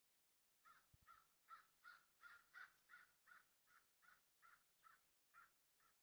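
Crow cawing in a fast run of about fifteen short caws, starting just under a second in.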